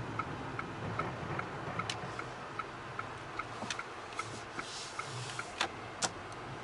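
Chery Tiggo 7's turn-signal indicator ticking steadily, about two and a half ticks a second, over low road and engine noise in the cabin. A few sharper knocks come in, the loudest two near the end.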